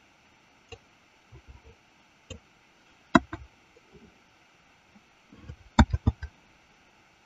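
Computer keyboard keys and mouse buttons clicking: a few scattered clicks, a sharp pair a little past three seconds in, and a quick run of four clicks around six seconds in.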